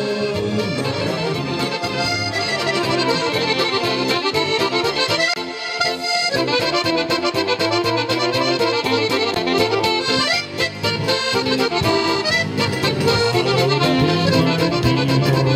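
Small live band playing an instrumental passage: a reedy lead melody with clarinet over keyboard and a steady bass beat.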